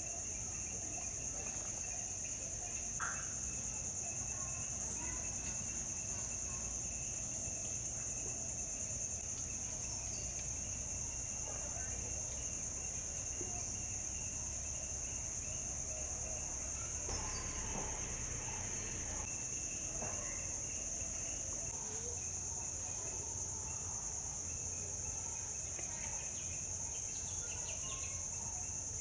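Steady, unbroken high-pitched insect chorus, with a few faint bird calls now and then.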